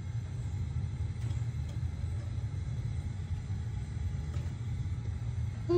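Steady low rumble with no clear source.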